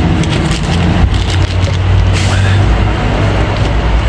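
Semi-truck diesel engine idling with a steady low rumble, heard through the open cab door, with a few light knocks.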